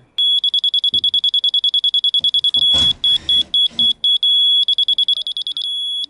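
Rotary laser level receiver beeping rapidly in a high single pitch, its beeps changing pace as it is moved, then holding a steady tone for about a second near the end, the receiver's signal that it sits on the laser beam's set height. A brief rustle is heard about halfway through.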